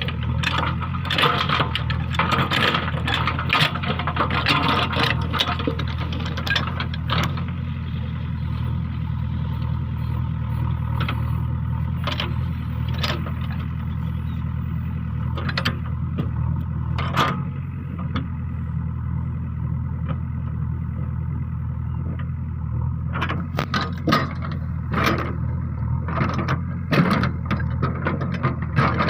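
Diesel engine of a JCB backhoe loader running steadily, with bouts of scraping and clanking from the machine working the road surface for the first several seconds and again near the end.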